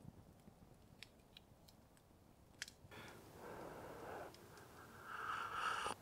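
Sparse faint crackles from a small wood campfire. After about three seconds comes a soft rushing breath, then a louder slurping hiss near the end as very hot instant coffee is sipped from a mug.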